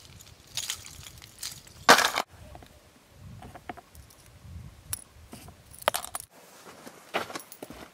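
Metal fishing lures and a snap swivel clicking and jangling as they are handled and clipped together, with a short loud rustle about two seconds in.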